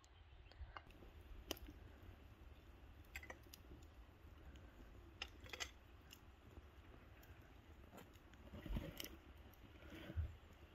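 Near silence: a faint low rumble with scattered small clicks, and a couple of louder knocks near the end.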